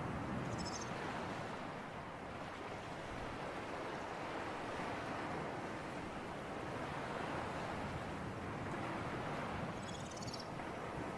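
Sea surf and breeze: a steady wash of waves and wind that swells and eases slowly. Two brief high chirps sound over it, one just after the start and one near the end.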